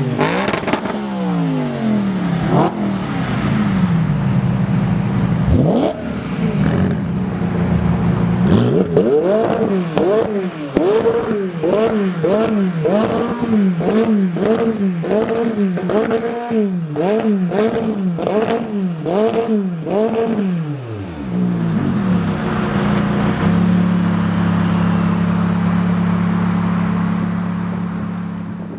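V8 performance cars with Akrapovič exhausts revving from standstill: about a dozen quick rise-and-fall throttle blips with sharp cracks from the tailpipes, then a steady idle.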